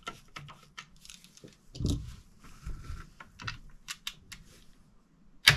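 Small clicks and taps of metal parts and a tool on an antique air rifle's wooden stock as its trigger is fitted, with a couple of duller knocks about two seconds in and one loud sharp knock near the end.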